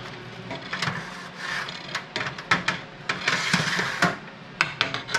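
Wire-mesh drying racks being slid out of and shifted in a food dehydrator, with metal scraping along the rack runners and several sharp clicks and knocks. A longer scrape comes a little after the middle.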